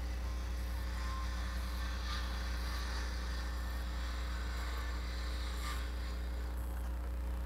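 Electric ducted-fan model jet in flight: a steady rushing fan noise over a constant low hum.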